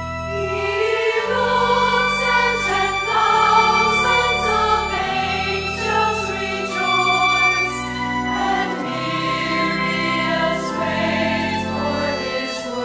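Women's choir singing a hymn, accompanied by violin and organ holding low sustained notes beneath the voices.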